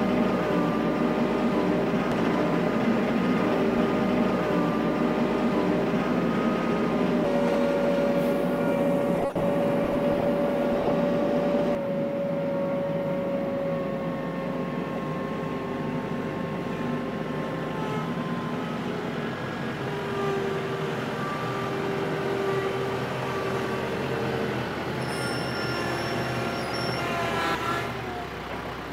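An engine running steadily, with several held tones that drift slowly in pitch; the sound changes abruptly and drops a little in level about twelve seconds in.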